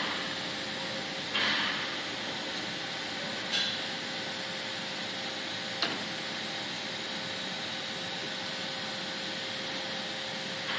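Steady running noise of sorghum-processing machinery in a factory hall, with a constant hum. There is a brief louder hiss about a second and a half in, another short one a little later, and a sharp click near the middle.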